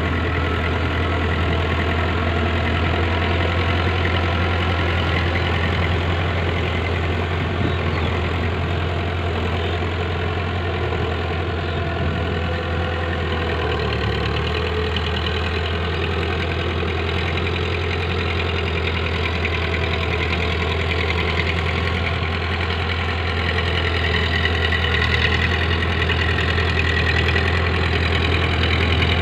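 Powertrac Euro 55 tractor's diesel engine running steadily under load while driving a rotavator through a flooded paddy. It grows a little louder near the end as the tractor comes closer.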